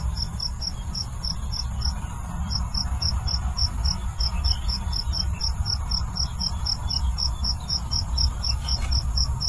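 A cricket chirping steadily: short, evenly spaced high-pitched chirps, about four a second, over a low steady rumble.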